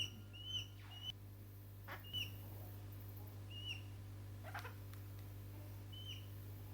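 Australian king parrots giving short, high-pitched calls, about seven single notes at uneven intervals, with a few brief scratchy sounds between them.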